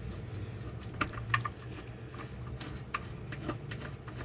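A few light clicks and taps from parts and tools being handled during transmission mount work, over a steady low hum.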